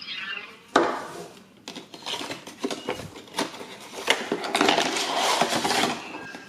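Hard plastic toy parts clicking and clattering as they are handled, with a sharp click about a second in and a denser stretch of clatter and rustling near the end.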